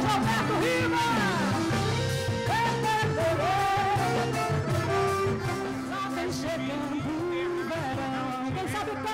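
Live band music with a woman singing into a microphone, her voice sliding between notes over the band's steady low notes, keyboards and drums.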